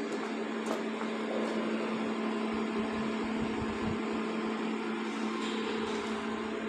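Steady machine hum, a constant low tone over an even noisy drone.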